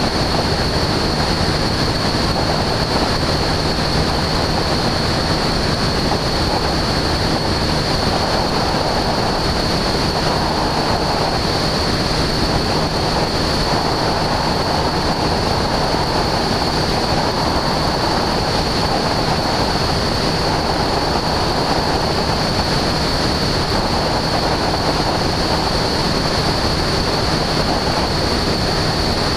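Aviat Husky A-1C light aircraft in cruise flight: the engine and propeller run steadily, mixed with wind rushing over the microphone and a steady high whine throughout.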